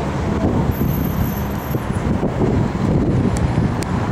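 A Boeing 767-300 freighter's twin jet engines at takeoff thrust, heard from behind the aircraft: a loud, steady roar with a heavy low rumble as it rotates and lifts off.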